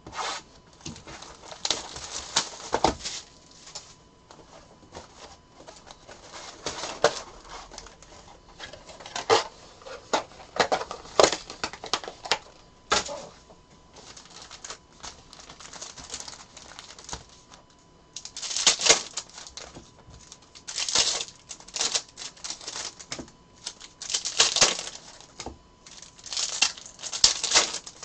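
Foil card-pack wrappers crinkling and tearing as packs of Panini Contenders football cards are handled and ripped open, among irregular clicks and taps of cardboard and packs. The crinkling comes in longer, louder bursts in the second half.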